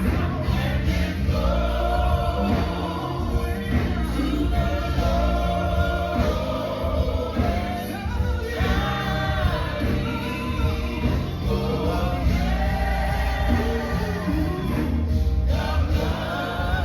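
Gospel music: a choir singing held, gliding lines over instrumental backing with a heavy bass.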